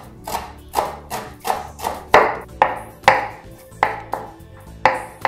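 Chef's knife finely chopping fresh herbs on a wooden cutting board, about two strokes a second, over background music.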